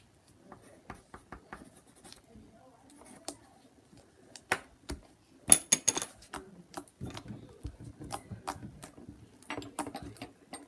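Pen scratching and tapping on paper as an answer is written down, with scattered small knocks and clicks of handling and one sharper clack about five and a half seconds in.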